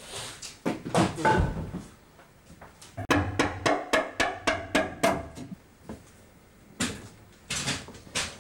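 Hammering into timber joists overhead: a quick run of about nine ringing hammer blows, about four a second, with a few more knocks before and after.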